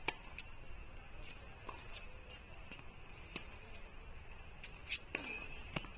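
A tennis ball struck with a racket right at the start, followed by fainter, sharp hits and bounces spaced a second or more apart, over a faint steady high-pitched whine.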